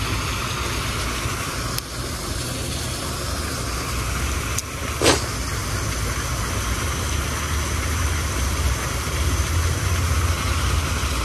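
Steady rush of water pouring over a small creek spillway, with a low rumble underneath that swells a little near the end. A light click comes about two seconds in, and a sharper click and a short sharp sound come around four to five seconds in.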